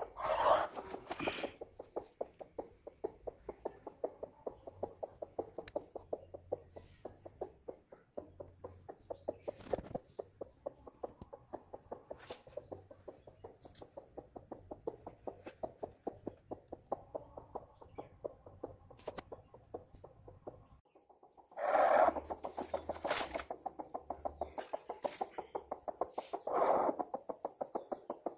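Broody hen sitting on eggs, clucking in a rapid, continuous run of short low clucks. There is a brief pause about two-thirds of the way through, after which the clucks come louder.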